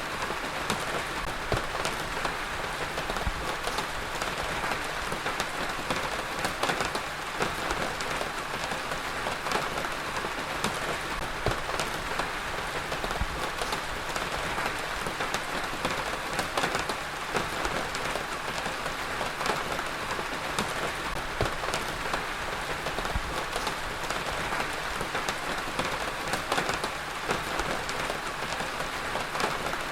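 Heavy rain falling steadily, a dense hiss of drops with many small individual drop ticks on a surface.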